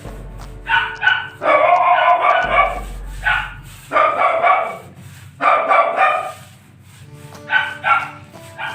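A dog barking repeatedly in short and longer bursts, with background music underneath.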